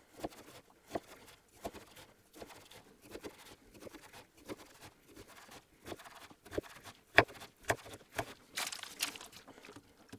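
A knife cutting down through a slab of frozen grated-potato dough, making an irregular series of short crunches about one a second, the loudest a little after the middle. Baking paper crinkles under the hands near the end.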